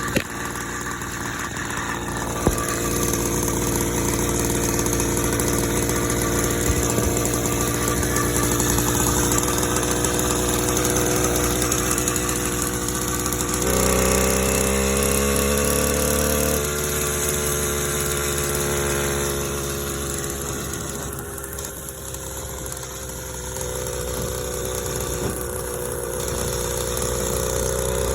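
Small bicycle-mounted engine running while riding, its pitch rising and falling with the throttle. The engine is ported, with a speed carburetor, a high-compression head and a lightly relieved exhaust, and is tuned to run quietly with strong low end. Its note strengthens about halfway through, eases off, then climbs again near the end.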